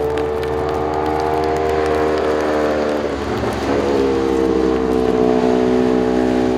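Racing motorcycle engine held at steady high revs, its pitch sagging slowly, with a brief wavering about three seconds in before it steadies again.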